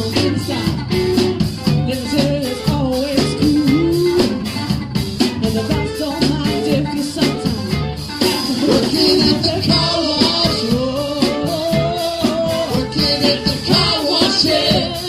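Live band playing a funk-disco song: drum kit with a steady beat and fast hi-hat, bass guitar, electric guitars and a female lead vocal.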